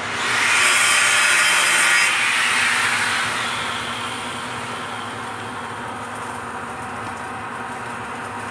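Harsh rasping of metal being worked on a welding-test pipe joint, loud for about two seconds and then fading away. A steady hiss and hum from the welding work follows.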